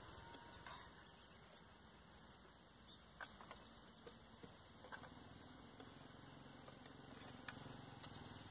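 Near silence, with a faint, steady, high-pitched chirring of insects and a few faint clicks.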